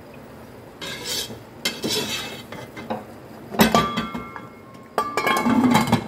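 A metal slotted spoon scraping and scooping rice in a non-stick cooking pot, with clinks against the pot. About three and a half seconds in comes a sharp clank that rings on, and near the end a louder clatter as the metal lid goes back onto the pot.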